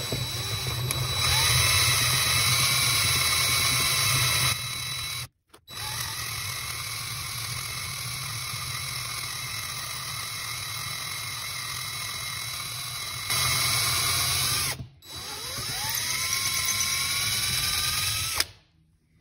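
Electric drill driving a quarter-inch bit into a 4L80E transmission pump half, enlarging a hole. The drill runs steadily and stops briefly about five seconds in and again around fifteen seconds, its pitch rising as it spins back up. It cuts off shortly before the end.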